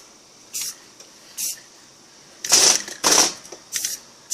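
Aerosol spray paint can hissing in five short bursts, the middle two longer and louder: quick sprays of camo paint to break up the pattern.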